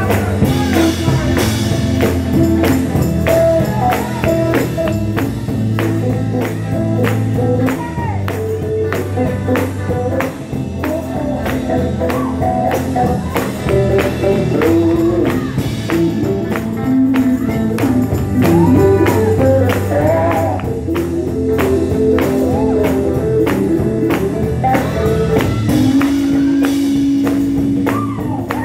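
Live sacred steel gospel music from a church band: a steel guitar slides and bends over electric guitar, bass and drums, with a steady tambourine beat and singing.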